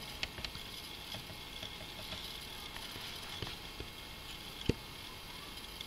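Quiet steady hiss of room tone and microphone noise, with a few faint ticks and one sharp computer mouse click near the end.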